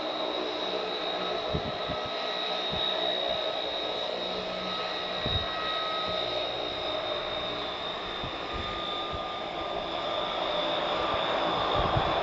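Hawker Siddeley Andover C1's two Rolls-Royce Dart turboprop engines running as the aircraft taxis: a steady high whine over a rushing drone, growing a little louder near the end. Occasional low thumps sit under it.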